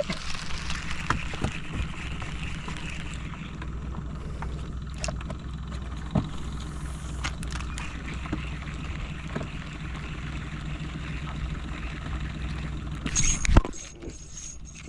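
A steady low hum runs under faint clicks and light knocks as a spinning reel is cranked to wind in fishing line, with a louder knock near the end.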